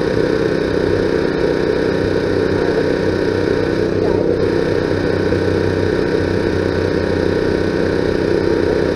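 A loud, steady mechanical drone with a constant hum, like an engine or generator running, unchanging throughout.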